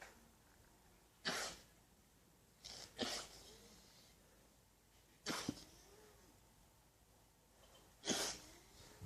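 Alpacas sneezing: a string of short, sharp, breathy blasts through the nose, about five of them, one to three seconds apart.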